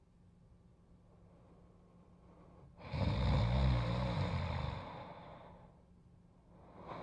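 Snoring in sleep: one long snoring breath about three seconds in, lasting about three seconds with a low rattle, then quiet until the next breath begins at the very end.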